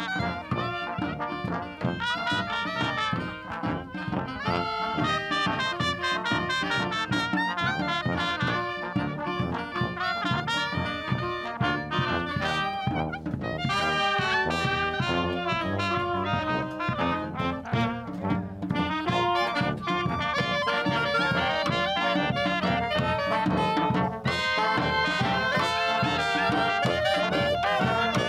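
Brass band playing an upbeat tune while marching: trumpet, saxophone and clarinet over two sousaphones carrying the bass line.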